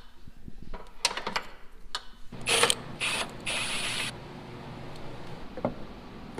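Cordless power tool run in three short bursts, spinning out the oil cooler's mounting bolts, after a few clicks and clanks of tools and parts being handled. A single knock near the end.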